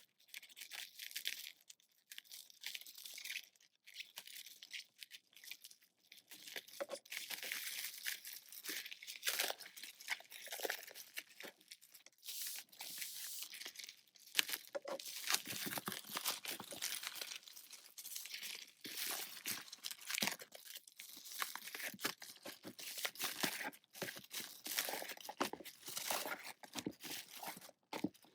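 Hands opening a shipping package: continuous tearing, crinkling and rustling of packaging, with many sharp crackles.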